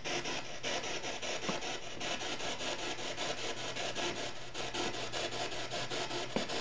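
Steady scratchy, rasping noise made of rapid, evenly spaced pulses, with no clear voice in it.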